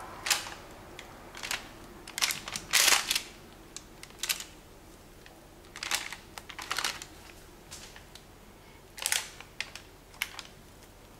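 A spatula scraping and smoothing thick, wet cake batter over baking parchment in a tray: short, irregular swishes and scrapes, about ten, with pauses between.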